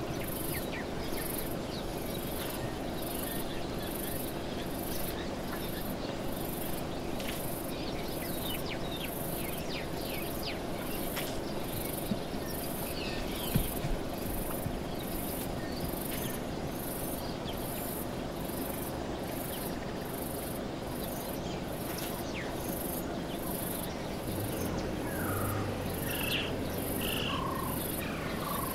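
Bush ambience led by an insect's high chirping, pulsing a little over once a second, over a steady background hiss. Scattered short bird calls, two brief knocks around the middle, and near the end a few short falling bird notes with a low rumble.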